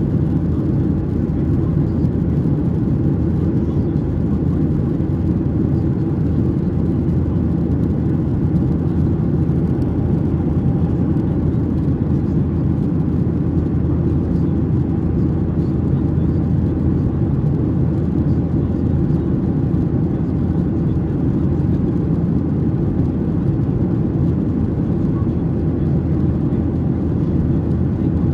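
Steady low rumble of engine and airflow noise heard inside the cabin of a Boeing 737-800 in flight.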